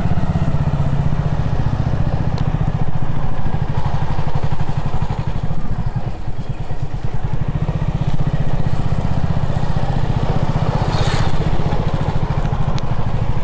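A motorcycle engine running steadily at low speed, a dense low rumble with a fine regular pulse. A brief hiss near the end, about eleven seconds in.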